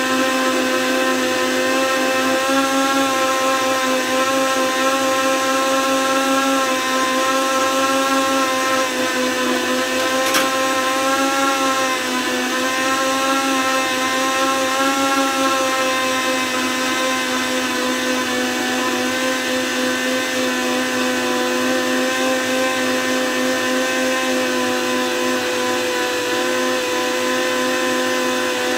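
Sharp blender motor running steadily at speed, grinding rolled oats into fine flour in its jar: a continuous motor whine over a noisy rush, its pitch wavering slightly, with one brief click about ten seconds in.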